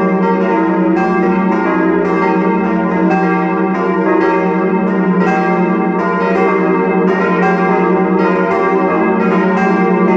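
Full peal of four steel church bells cast by Böhler of Kapfenberg in 1922, tuned to E♭, F, G and B♭, swinging and ringing together. Their strokes follow one another about twice a second and overlap into one continuous ringing.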